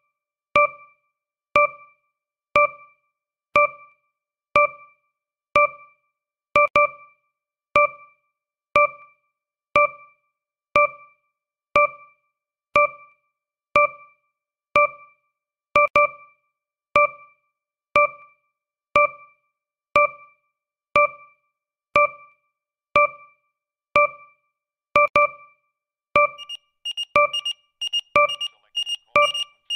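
Countdown timer sound effect: a short, pitched, piano-like electronic tick about once a second, each one fading quickly. About 26 seconds in, a faster run of higher electronic beeps begins, the timer's alarm for time being up.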